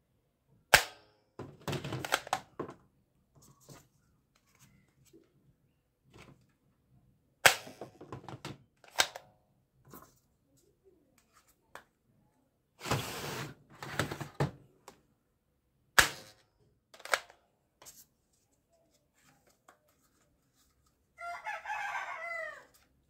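Plastic toy gun being handled: sharp clicks of its mechanism every few seconds and short stretches of plastic clattering. Near the end, a drawn-out pitched call falls in pitch.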